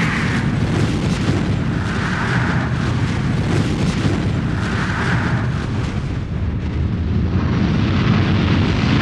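A dramatic sound effect under a title card: a loud, steady rumble like distant explosions, with a hissing swell about every two and a half to three seconds.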